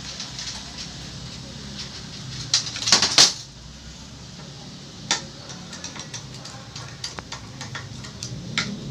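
Metal parts of a mixer grinder motor clicking and clattering as they are handled and fitted back together, with a louder burst of knocks and rattling about three seconds in.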